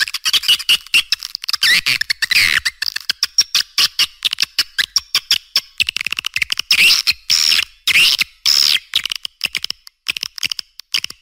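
Swiftlet lure calls: dense, rapid chittering chirps in quick runs, with louder sweeping chirps that rise and fall, and a short gap a little before the end.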